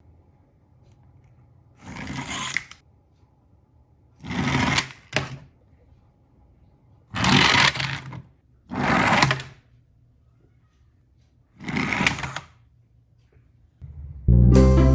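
Toy packaging being torn and handled open in six short noisy bursts, one of them a quick double. Background music with plucked strings comes in just before the end.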